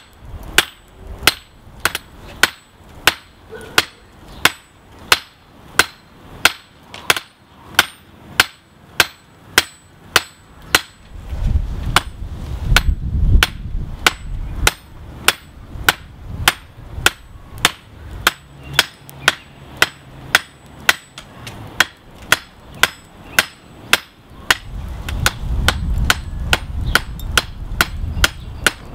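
Hand hammer striking a hot high-carbon railroad spike on a steel anvil, a steady rhythm of ringing blows about two a second, drawing the spike out flat. Twice a low rumble rises under the blows for a few seconds.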